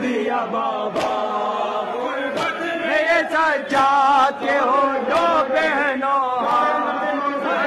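Male noha reciter singing a mournful Urdu lament through a microphone with a wavering pitch, a crowd of men chanting along with him. Sharp slaps at intervals of about a second or more: the crowd's chest-beating (matam).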